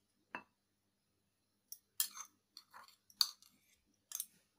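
Metal kitchen tongs clicking and scraping against a bowl while shredded carrot is lifted out onto a plate: a scattering of short, sharp clicks.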